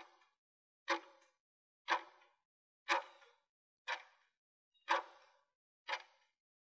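Countdown timer sound effect: a sharp clock-like tick once a second, each with a short ring, seven in all.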